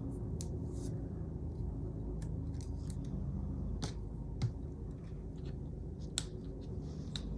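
Small craft scissors snipping a few times at irregular intervals, with light clicks of paper being handled, over a low steady hum.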